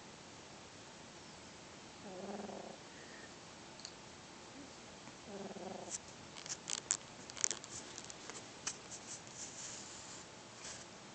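Four-month-old kitten snoring in its sleep: three short, low snores about three seconds apart over the first six seconds. In the second half, a run of sharp clicks and rustles, louder than the snores, ending with one sharp click at the very end.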